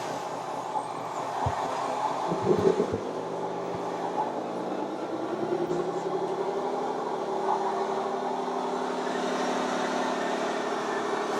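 A radio-controlled model truck or construction machine running, a steady mechanical drone. There are a few knocks about two to three seconds in, and a steady pitched hum settles in from about halfway.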